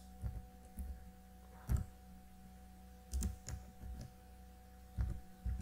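Computer keyboard keys typed in short scattered runs, over a steady electrical hum.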